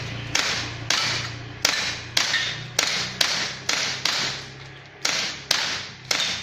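Upgraded Beretta airgun fired in quick succession: about eleven sharp shots, a little under two a second, each with a short decaying tail.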